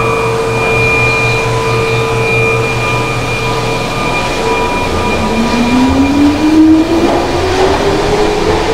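Keihan electric train in an echoing underground station. Steady whining tones fade over the first few seconds; then, about five seconds in, the traction motors start a whine that rises steadily in pitch as a train pulls away.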